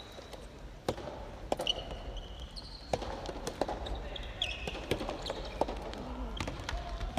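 Soft tennis play on an indoor court: a soft rubber ball smacked by rackets and bouncing on the floor in sharp knocks every half-second to second, with short high shoe squeaks in between.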